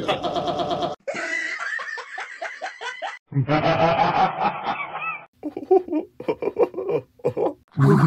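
Cartoon characters' laughs played one after another, each in a different voice: four separate laughs of one to two seconds each, with short gaps between them.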